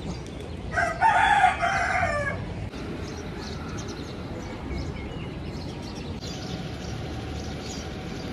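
A rooster crows once, about a second in, in a single call of about a second and a half that slides down at the end. After it there is only a steady low background noise.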